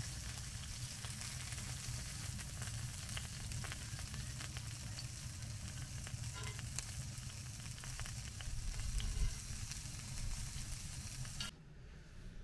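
Oiled potato slices and cheese-topped burger patties sizzling in a cast-iron grill pan, with a few light clicks of metal tongs and a low steady rumble underneath. The sizzle cuts off suddenly near the end.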